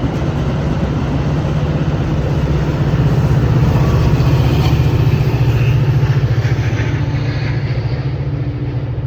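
A loud, steady vehicle rumble that builds to a peak about halfway through and then eases off, like a heavy vehicle passing close by.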